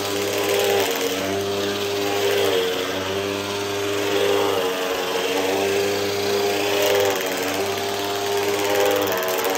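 Hoover WindTunnel upright vacuum cleaner running on carpet, a loud steady motor whine over rushing air. Its tone wavers and dips briefly about every two seconds as the vacuum is pushed and pulled across the pile.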